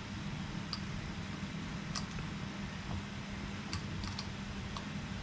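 A handful of light, scattered clicks of small parts being handled while an electric fuel pump is taken apart, over a steady low hum.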